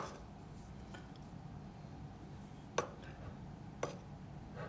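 Metal spoon clinking against the inside of an opened tin can as it digs down through baked beans in sauce: a few short sharp clinks, one about three seconds in and another a second later.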